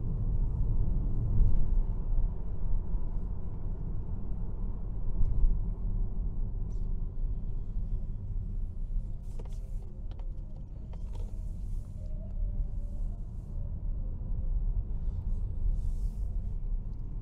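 Steady low road and tyre rumble inside the cabin of a Mazda MX-30 electric car on the move, with a few faint clicks about ten seconds in.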